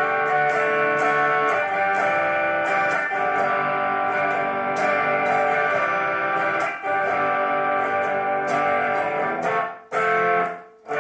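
Guitar music: electric guitar playing sustained, ringing notes over a steady pulse of sharp high ticks. The sound drops out briefly twice near the end.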